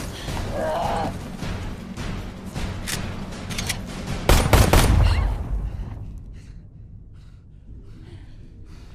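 Film fight-scene sound effects: a rapid flurry of pistol shots and scuffling impacts, with one much louder, deep blast about four and a half seconds in. After about six seconds it fades to faint scattered clicks and movement.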